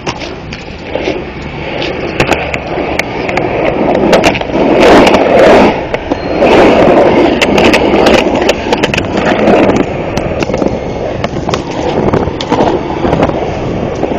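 Skateboard wheels rolling over a concrete skatepark bowl: a steady rumble that swells loudest from about four and a half seconds in to about nine seconds, with sharp clacks and knocks from the board and wheels throughout.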